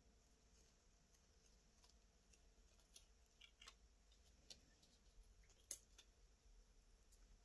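Near silence, broken by a few faint crinkles and ticks of the clear plastic carrier sheet being peeled off heat transfer vinyl on fabric; the sharpest tick comes about three-quarters of the way through.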